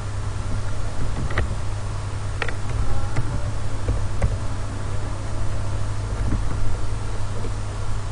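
Steady low electrical hum and hiss from the recording setup, with a few scattered sharp clicks of computer keyboard keys and a mouse as text is typed into a form.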